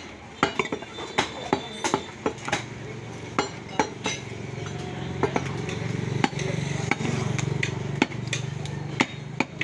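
Butcher's cleaver striking beef and a wooden log chopping block: sharp, irregular knocks, sometimes several in quick succession. A low steady hum rises under them a few seconds in and fades again near the end.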